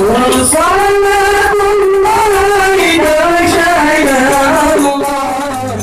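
A song plays, a singer holding long notes that slide between pitches over instrumental backing; it gets quieter near the end.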